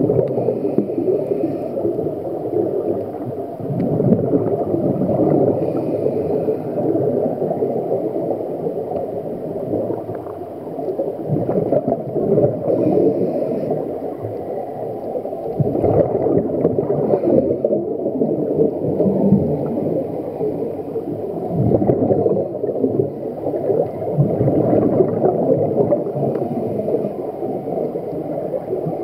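Scuba regulator exhaust bubbles gurgling underwater: a muffled, continuous bubbling that swells and fades irregularly.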